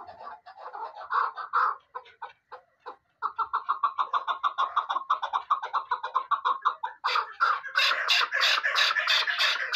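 Caged chukar partridge calling. A few scattered short notes, a pause, then from about three seconds in a fast, even run of short chuk notes that grows louder and harsher about seven seconds in.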